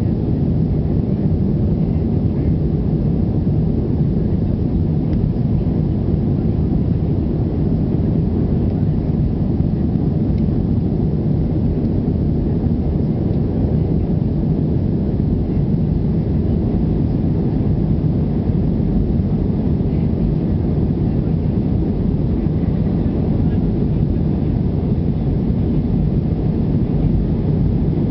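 Airbus A320 in its climb after takeoff, heard from inside the passenger cabin: a steady, deep rumble of jet engines and rushing air that holds level throughout.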